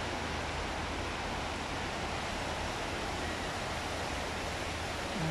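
Steady hiss of water splashing from an indoor fountain jet, with a low steady hum beneath.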